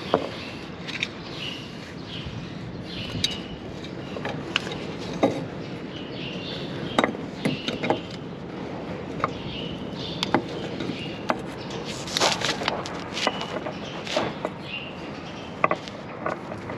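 Scattered light clicks, knocks and scrapes as a gloved hand handles a new spin-on coolant filter and threads it onto its mount under a tractor engine, with a denser run of clicks about twelve seconds in.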